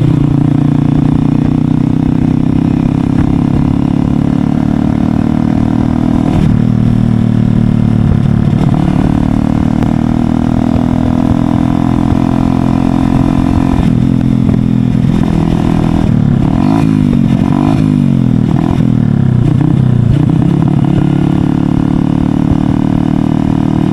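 Single-cylinder engine of a Honda CB Shine motorcycle running through an aftermarket SC Project exhaust at a steady note. About two-thirds of the way in, the revs rise and fall several times before settling again.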